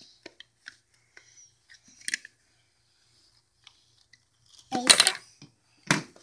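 Small plastic Duplo bricks clicking and knocking as they are handled and pressed together, with light rustling from a cardboard toy box. Two louder clattering rattles come near the end.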